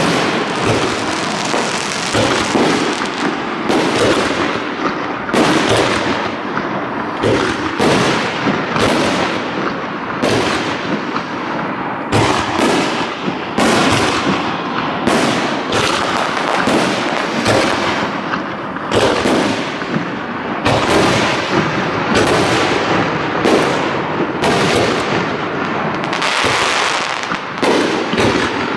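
Aerial fireworks shells bursting in a continuous barrage: sharp bangs one after another, one or two a second, over a steady din of overlapping bursts.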